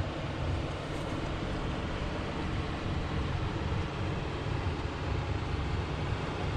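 Steady rushing of a fast-flowing river running past the bank, with a rough low rumble underneath.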